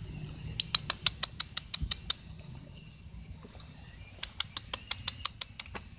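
Cat crunching dry kibble: two quick runs of crisp crunches, about seven a second, the first starting about half a second in and the second past the four-second mark.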